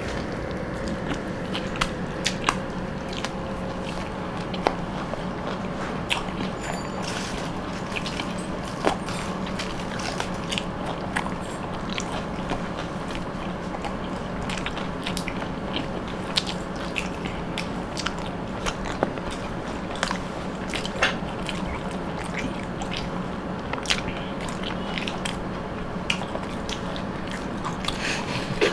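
People chewing and biting through chicken rolls in a race to eat fastest: many small, irregular mouth clicks and smacks over a steady low hum.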